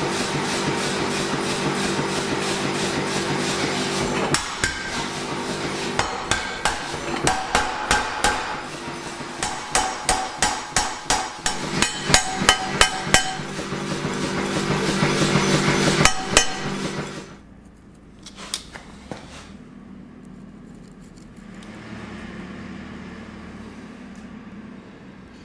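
Hammer blows forging a red-hot 4140 steel bar down to size. The blows come in irregular runs of two or three strikes a second over a steady machine hum and stop about seventeen seconds in. After that there is only a low hum with a couple of light clicks.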